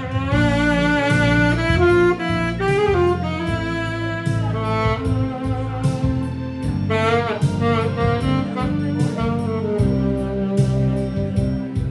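Instrumental break of a slow Korean trot ballad: a saxophone carries the lead melody, sliding between notes, over bass and a steady beat.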